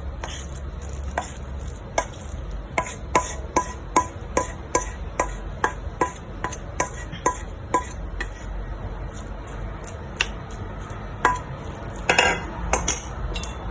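A utensil tapping and scraping against a plate as marinated minced pork is scooped onto a steaming plate: a regular run of light clinks, about two to three a second. Then a few sparser, louder knocks and a short clatter near the end.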